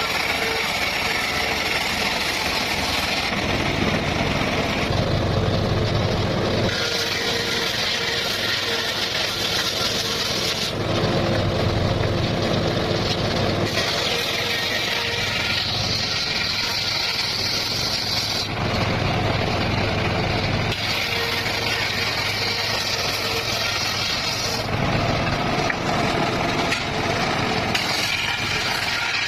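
Circular saw cutting petung bamboo, running continuously; its tone changes every few seconds as the blade goes into and out of the cut.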